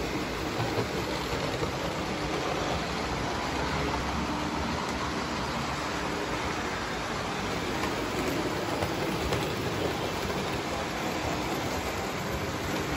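Model trains running on a layout's track: a steady rumble and hiss of small wheels and motors.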